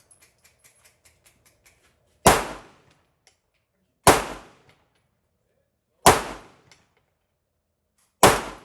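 Handgun fired four times in slow, deliberate succession, about two seconds between shots, each a sharp crack with a short echoing tail. A few faint ticks come before the first shot.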